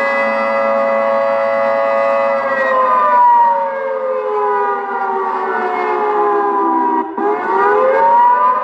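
ATI HPSS-32 electronic siren sounding the attack cycle with prerecorded audio of a Federal 2T22 two-tone siren blast. A steady chord holds for about two and a half seconds, then slides slowly down in pitch, cuts out for an instant about seven seconds in, and climbs quickly back up.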